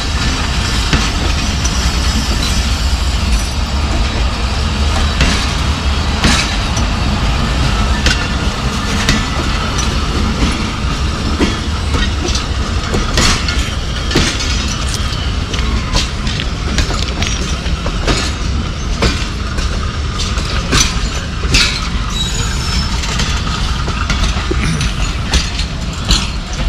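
Passenger coaches of a departing Pakistan Railways express train rolling past. A steady rumble of wheels on track, with many sharp clicks as the wheels cross rail joints.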